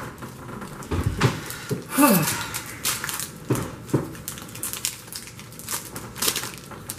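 Foil wrapper of a Magic: The Gathering booster pack crinkling and tearing open by hand, in a string of short crackles and rips. About two seconds in, a brief pitched sound falls in pitch and is the loudest moment.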